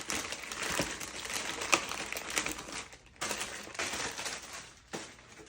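Packaging being handled, rustling and crinkling with small clicks, in two spells with a short pause a little after halfway.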